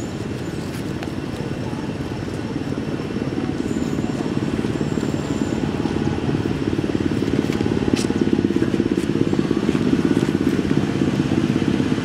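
A steady low rumble that grows louder about halfway through.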